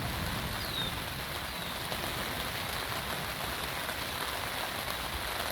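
Steady rain falling during a passing storm, an even patter.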